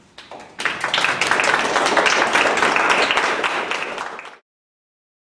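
Audience applauding: a dense patter of hand claps starts about half a second in, runs steadily, and cuts off suddenly a little over four seconds in.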